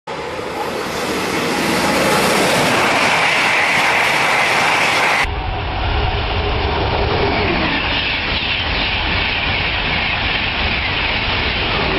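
Train running on rails, a loud steady rushing noise. About five seconds in it cuts abruptly to a second train recording with a deeper rumble.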